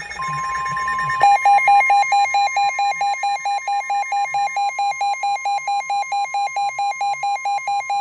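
NOAA weather radios alerting for a severe thunderstorm warning: the long, steady 1050 Hz warning alarm tone sounds throughout. About a second in, a radio's own electronic alarm joins it, beeping about four times a second.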